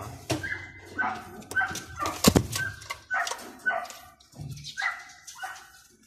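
Short high-pitched animal cries, repeated about twice a second, with one sharp clap about two seconds in.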